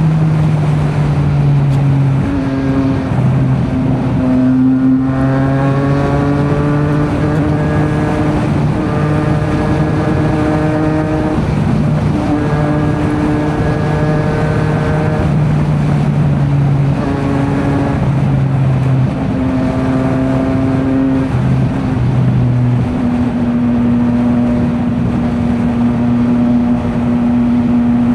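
Triumph Street Triple RS 765's inline three-cylinder engine running through an SC Project S1 slip-on muffler while the bike is ridden. Its note holds steady for a few seconds at a time and then steps to a new pitch as the revs change, with a slow rise about four to six seconds in.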